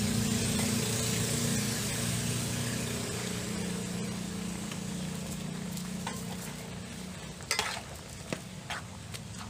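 Luffa and pork sizzling and simmering in broth in a wok, a steady frying hiss. From about seven and a half seconds in, a spatula stirs the pan, knocking and scraping against the wok a few times.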